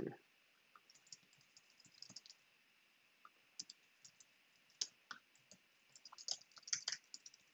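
Faint typing on a computer keyboard: irregular runs of key clicks separated by short pauses.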